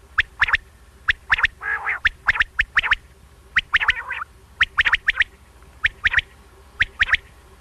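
Common quail calling: short, sharp notes repeated again and again, often in quick twos and threes, with a longer buzzy call about two seconds in and another about four seconds in.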